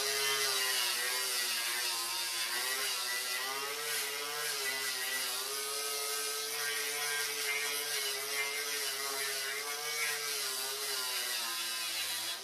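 Electric angle grinder with a wire wheel brushing rust and weld off a nut welded into a steel fender arch. Its motor runs with a steady whine over a bright scratchy hiss, the pitch wavering a little as the wheel is pressed against the metal.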